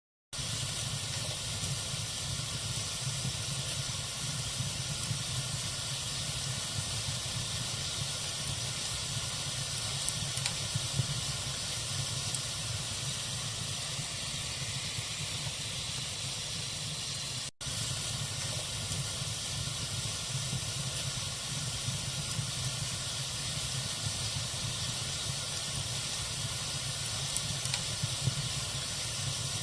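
Wood logs burning in a fireplace: a steady hiss with a few sharp crackles. The sound drops out for an instant a little past halfway.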